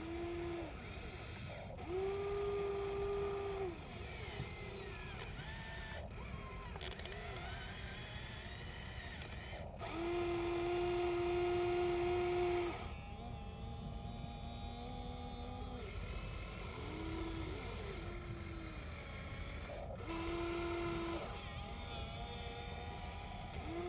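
Electric motors of a Huina 1593 RC excavator whining in short runs of one to three seconds as the arm, bucket and swing are worked. Each run rises in pitch as it starts and drops as it stops, and the longest comes about ten seconds in. A steady low rush lies under them.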